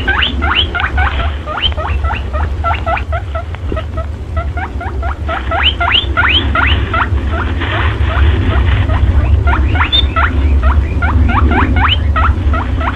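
Lure-call track sold as a perentie monitor lizard call for trapping: a fast run of high squeaks, each sweeping sharply upward in pitch, about four a second, over a steady low hum.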